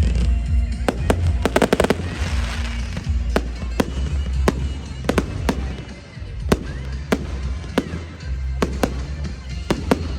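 Firework display: sharp aerial shell bangs at irregular intervals, with a quick volley of several bangs about two seconds in followed by a crackling fizz. Music with heavy bass plays throughout.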